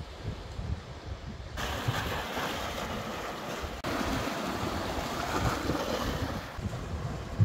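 Sea surf washing over rocks, an even hiss that comes in about a second and a half in, breaks off for an instant near the middle and eases near the end, with wind rumbling on the microphone.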